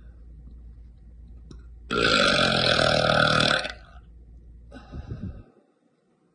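A woman's long, loud burp, nearly two seconds, beginning about two seconds in and cutting off suddenly. A short, fainter sound follows about a second later.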